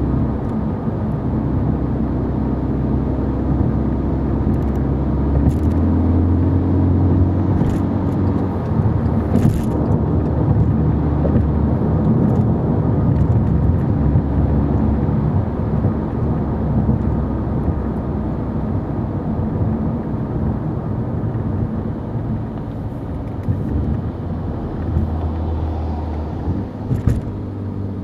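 Volkswagen Golf 6 GTI Edition 35 on the move, heard from inside the cabin: the 2.0-litre turbocharged four-cylinder running under steady road and tyre noise. The engine note shifts in pitch about six seconds in and again near the end.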